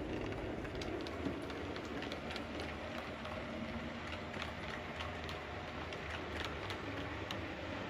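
OO gauge model train, an Accurascale Manor class locomotive hauling coaches, running along the track: a steady running noise of motor and wheels with faint irregular clicks.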